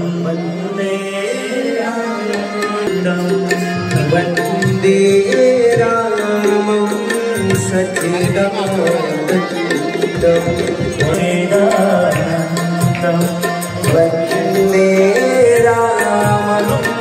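Indian music with tabla drumming over a steady low drone and a melodic line.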